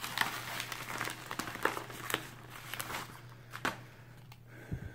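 Packaging being handled and opened by hand: irregular crinkling and crackling with a few sharp clicks, tailing off near the end.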